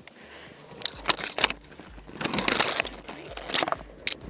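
Crunching and rustling of dry leaves, twigs and brush under boots and against clothing as a person pushes through undergrowth, in irregular bursts with a few sharp snaps about a second in and a longer, louder crunch about two seconds in.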